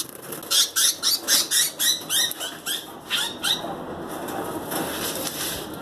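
A budgerigar giving a rapid series of short, rising screeches, about a dozen of them, for the first three and a half seconds: distress calls as a gloved hand grabs it in its cage.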